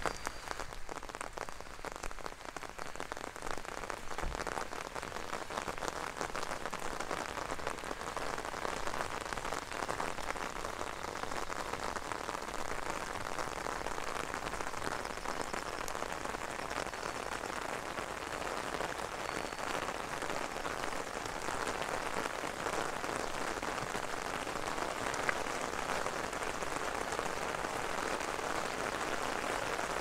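Steady rain falling, a dense, even patter of drops.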